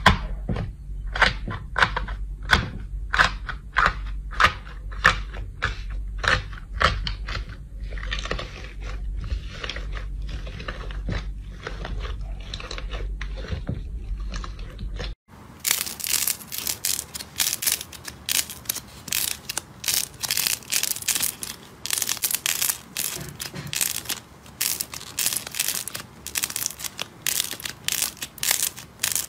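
Hands pressing and breaking the thin crisp crust on a bowl of purple slime, giving sharp crunches about twice a second that soften as the crust is worked in, over a low steady hum. About halfway through it cuts to blue slime being stretched and squeezed, with rapid, dense crackling.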